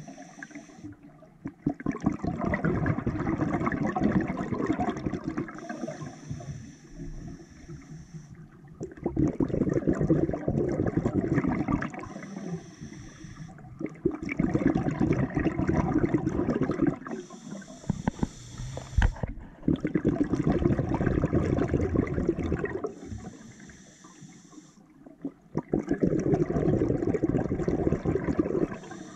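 Scuba diver breathing underwater on an open-circuit regulator: a high, steady hiss on each inhale, then a longer rush of exhaled bubbles, about five breaths in slow, even rhythm.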